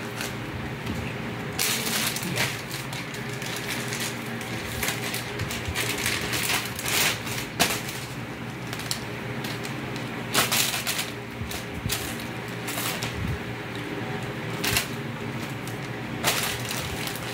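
Cloth and plastic packaging rustling and crinkling in irregular short rustles as baby clothes are handled and unfolded, over a steady low hum.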